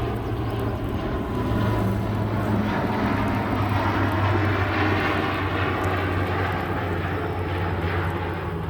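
A passing engine: a low steady drone with a rushing noise that builds to its loudest in the middle and then fades.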